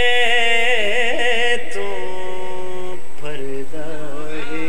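A man singing a qasida in a melismatic chant. A long held high note breaks into a wavering, ornamented run, then settles into held notes that step down in pitch.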